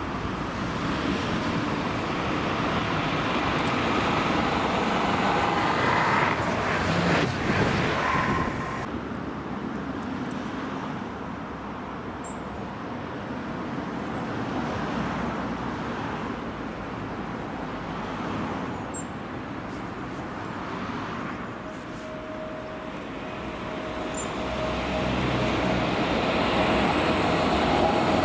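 Steady rumble of road traffic. Near the end a passenger train approaches along the line, its hum and wheel-on-rail noise growing louder.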